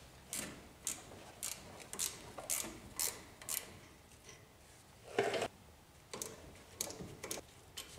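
Hand ratchet clicking in short strokes as the top bolts on a steering shaft collar are backed out: sharp clicks about twice a second, a louder clatter about five seconds in, then a few more clicks.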